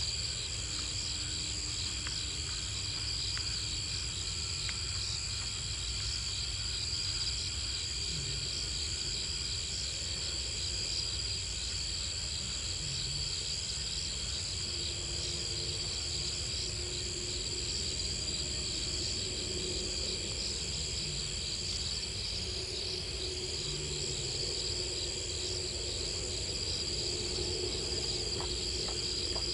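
Night chorus of crickets and other insects: a steady, many-voiced high trilling at several pitches over a low steady rumble.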